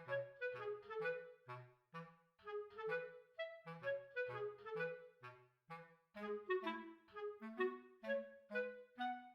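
Background music: a light, bouncy tune of short detached notes in a woodwind-like voice over a plucked-sounding bass line.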